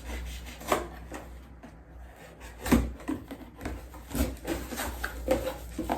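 Cardboard box and packaging being handled and unpacked: rubbing and scraping with irregular knocks, the loudest a little under three seconds in.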